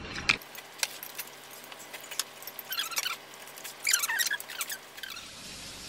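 Tableware at the table: light clicks of metal chopsticks against ceramic dishes, with two short squeaky scrapes about three and four seconds in.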